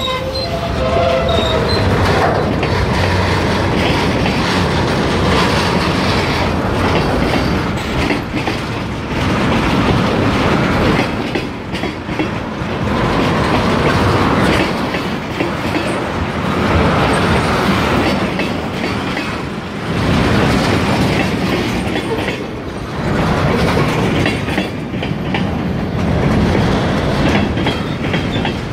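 A freight train's cars rolling past close by: a continuous loud rumble and rattle of wheels on the rails, swelling and easing every few seconds. A high, steady tone fades out within the first two seconds.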